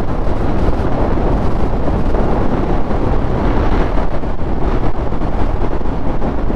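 Wind rushing over the microphone of a motorcycle ridden at freeway speed, a steady roar with the bike's running noise underneath.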